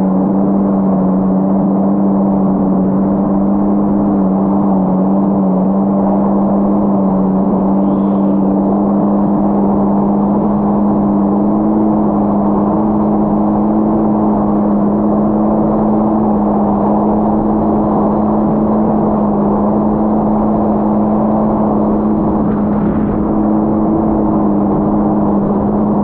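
Yamaha GP1800R SVHO jet ski's supercharged four-stroke engine running at a slow, steady cruise: a constant low hum whose pitch barely changes.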